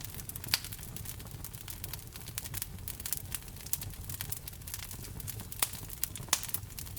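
Wood fire burning in a fireplace: dense crackling of the burning logs with a few sharper pops, over a low rumble.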